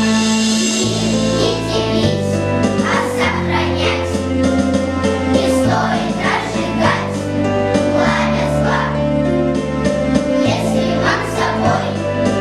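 A choir singing with an instrumental accompaniment whose sustained bass notes change every second or two.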